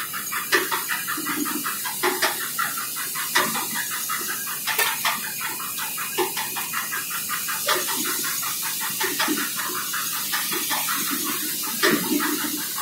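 Mineral-processing machine running, with a fast, even rattle over a steady hiss and an occasional sharper click.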